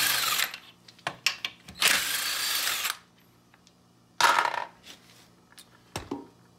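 Half-inch Bauer cordless impact wrench spinning off lug nuts that were cracked loose beforehand, in two runs of about a second each, with sharp metal clicks between them and a short metallic clatter about four seconds in.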